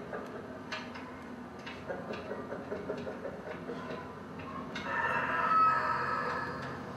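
A crowing call like a rooster's, heard about five seconds in and lasting under two seconds, swelling and then fading. Before it come scattered sharp taps.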